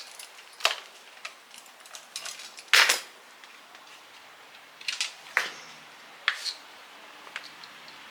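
Small metal parts and hand tools being handled and set down: scattered sharp clinks and knocks, the loudest nearly three seconds in.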